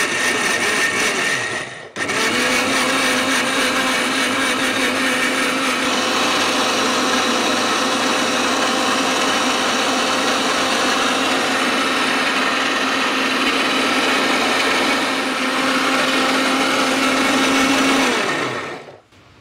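1000 W mixer grinder (MM Sapphire 5.0) grinding soaked rice with water into batter. The motor cuts out briefly about two seconds in, starts again and runs steadily, then winds down near the end.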